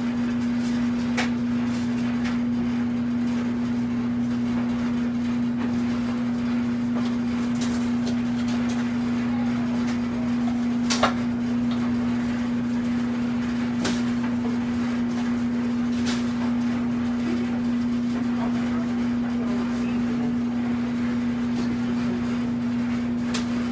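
A steady low hum runs throughout, with a few separate sharp knocks of a kitchen knife on a wooden cutting board as a green bell pepper is cut; the sharpest knock comes about eleven seconds in.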